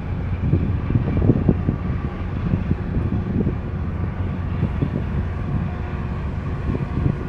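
Low, steady rumble of a harbour tug's and a container ship's engines, with wind gusting on the microphone.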